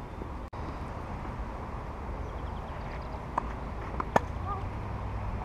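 Tennis ball bouncing on the clay court and then struck by a racket, a sharp pop a little after four seconds in, over a steady low background rumble.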